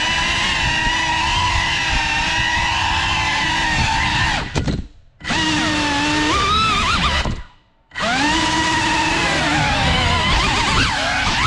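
Whine of a GEPRC CineLog35 cinewhoop's brushless motors and ducted propellers, rising and falling in pitch with the throttle. It cuts out almost completely twice, about four and a half seconds in and again near eight seconds, then winds back up.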